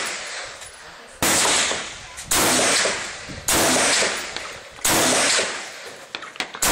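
Gunshots at an outdoor range, fired one at a time about a second and a quarter apart: four sharp reports, each fading out over about a second, and a fifth at the very end.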